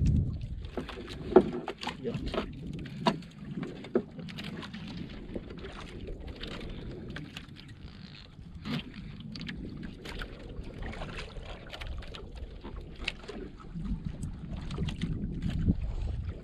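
Wind and water noise around a small outrigger boat, with scattered sharp knocks and clicks from a handline being hauled in hand over hand against the wooden hull. The loudest knocks come in the first few seconds.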